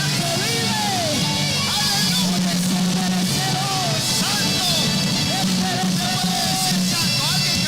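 A live band playing rock-style worship music, with guitar and a drum kit.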